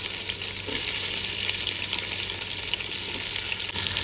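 Sliced big onions sizzling and crackling in hot oil with whole spices in a pan: a steady frying hiss with many small pops.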